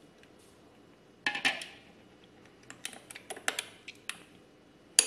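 A spoon clinking and scraping against a cup while scooping frozen whipped coffee: a cluster of clinks about a second in, a quick run of sharp taps a little later, and a loud clink near the end.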